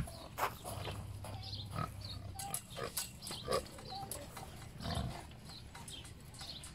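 Pigs grunting, a scatter of short grunts at irregular intervals.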